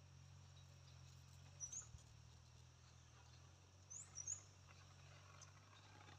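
Near silence: faint outdoor quiet with a low steady hum and a few brief, high-pitched chirps, one a little under two seconds in and two close together about four seconds in.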